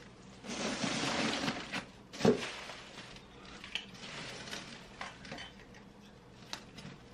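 Rustling and scraping of flocked artificial Christmas tree branches being pulled from a cardboard box, with one loud thump a little over two seconds in, then lighter rustling and small clicks.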